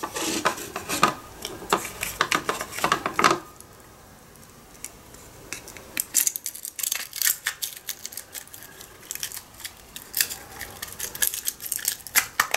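Rapid small clicks and scrapes of hands pressing a worn crystal microphone's housing and insert back together. They come in two spells with a quieter gap of a couple of seconds between.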